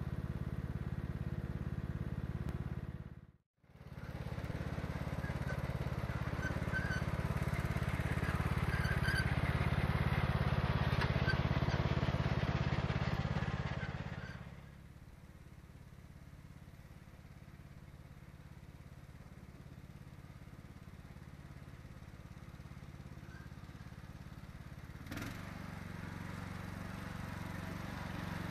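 TroyBilt Bronco lawn tractor's 19 hp Kohler Courage engine running steadily, with a brief break about three seconds in. After about fourteen seconds it drops to a fainter hum from further off, which grows slowly louder as the tractor approaches.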